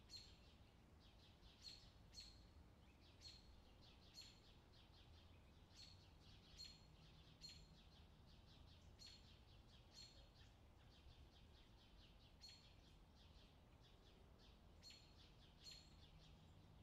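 Faint, irregular clicking of knitting needles tapping together, about one click every half second to a second, as stitches are knitted in the round on double-pointed needles.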